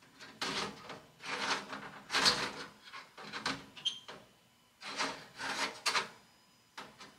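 Small stones scraping and rubbing as they are slid and set down on the metal honeycomb bed of a laser engraver, in about six short bursts. There is a brief squeak about four seconds in.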